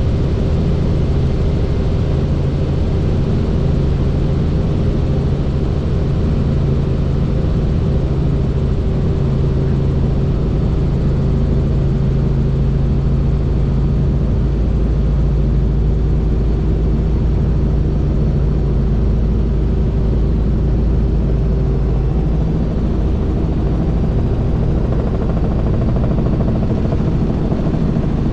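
Helicopter in flight: the turbine and rotor run with a steady, loud drone made of several low tones, with a slight shift in the low tones about halfway through.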